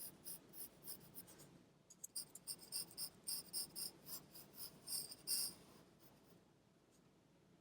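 Pencil scratching on paper in a series of short, quick sketching strokes. The strokes break off briefly under two seconds in, resume, and stop about six seconds in.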